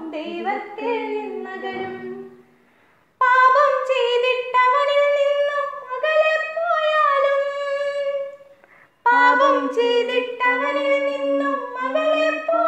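Two women singing a Malayalam children's Bible song unaccompanied, in three long sung phrases with short breaks between them about two and nine seconds in.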